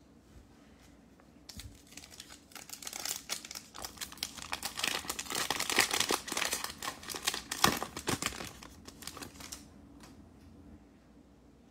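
Shiny foil wrapper of a 2020 Panini Mosaic football card pack being torn open and crinkled by hand. It is a dense crackling that starts about a second and a half in, is loudest in the middle with a few sharper snaps, and stops about two seconds before the end.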